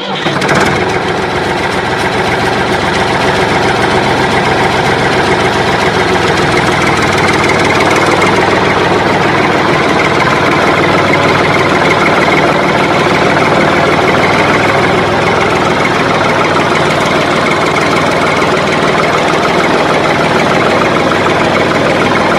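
Tractor engine running steadily, a dubbed-in sound effect rather than any sound of the plastic toy itself.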